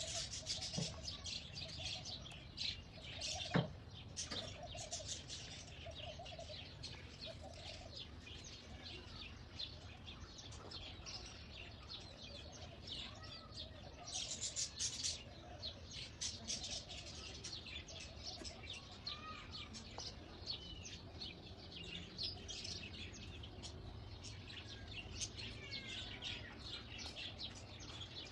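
Many small birds chirping and twittering at once in a dense, continuous chorus, with some lower calls mixed in. A single sharp click sounds about three and a half seconds in.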